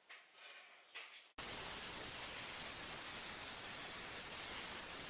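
Faint handling sounds, then about a second and a half in a steady, even hiss cuts in abruptly and holds at one level.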